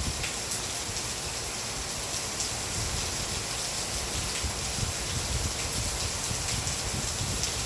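Steady rain falling, an even hiss with scattered drops ticking, and a low rumble underneath that may be wind.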